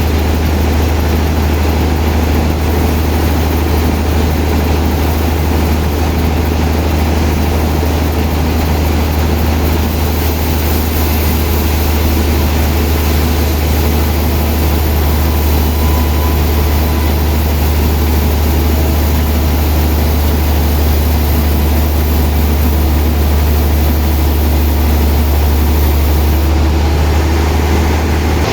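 Sawmill machinery running steadily: a loud continuous drone with a strong deep hum.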